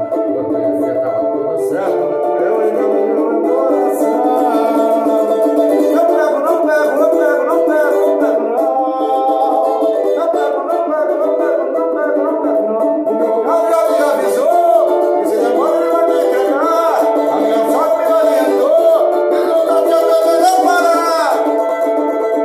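Four-string samba banjo (banjo-cavaquinho) strummed continuously, playing samba.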